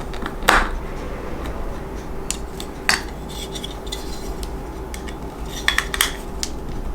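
A small screwdriver driving a small black screw into the plastic parts of a model kit, with scattered clicks and taps of the tool and parts, over a steady low hum.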